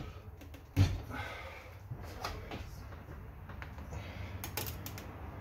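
A new motorcycle tire being worked onto its rim by hand with tire spoons and a changer bar: a single thump about a second in, then light rubbing and a few scattered clicks, with a quick run of clicks near the end.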